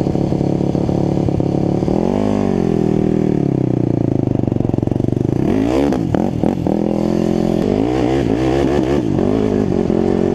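Quad (ATV) engine running while riding on sand, its pitch swinging up and down as the throttle is opened and closed, with quick revs about halfway through and again near the end.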